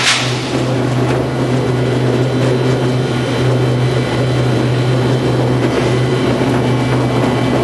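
Wire straightening and cutting machine running: a steady, loud motor hum with constant mechanical noise.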